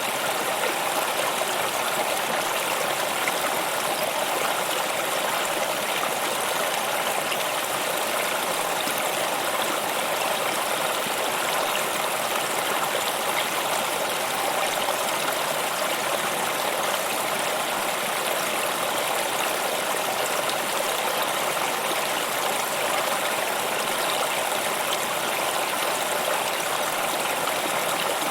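Stream water running and babbling in a steady, even rush.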